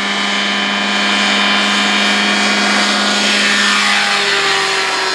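Airbike ultralight aircraft's engine and propeller running steadily as it comes in low toward the listener. Its pitch drops about four seconds in as it passes close by.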